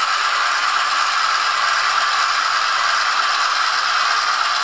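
An H0-scale model freight train, a diesel locomotive hauling tank cars, rolling along the track with a steady rattle of wheels on rail.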